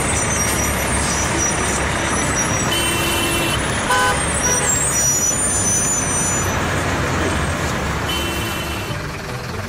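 Heavy truck engine running steadily, with a short pitched beep about four seconds in and the sound easing a little near the end.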